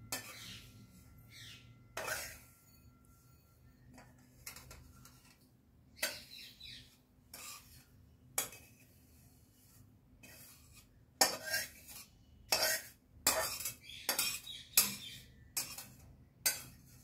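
A metal spoon scraping and knocking against a small metal pan as roasted semolina is scraped out into a bowl. The strokes are irregular, a few scattered scrapes at first, then quicker and louder ones in the second half.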